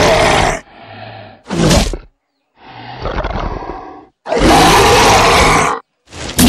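Monster roar sound effect: loud, harsh roars alternating with quieter rasping growls. The longest roar, about a second and a half, comes past the middle.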